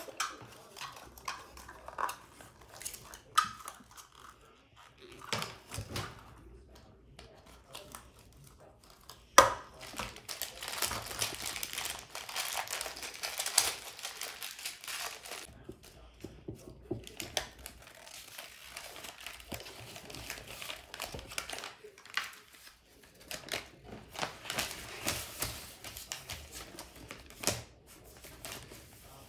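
Crinkling of plastic and paper LEGO packaging handled in short stretches, with occasional sharp clicks, the loudest about nine seconds in. Near the end the rustle comes from a paper instruction sheet being unfolded and smoothed flat.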